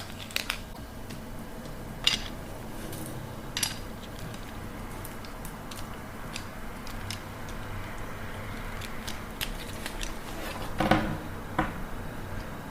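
Metal clinks and clicks of a bicycle U-lock and its steel flex cable being handled and locked. There are a few sharp clicks in the first seconds and a louder knock and clicks about eleven seconds in.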